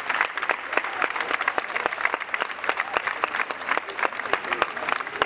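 A group of people applauding: many hands clapping together, a dense, even run of claps.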